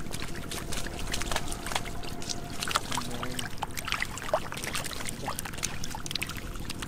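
Irregular small splashes and slaps of muddy water as stranded catfish flop and wriggle in a shallow puddle.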